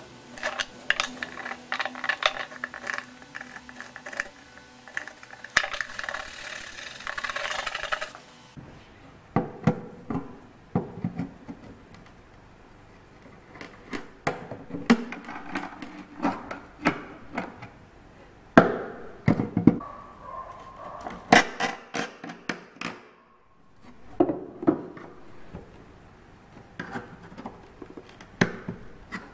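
A dense, rattling noise that stops abruptly about eight seconds in, then hand tools working an old iron lock plate on a wooden chest: end-cutting pincers and a screwdriver gripping, levering and prying at its nails, making irregular sharp metal clicks, knocks and scrapes.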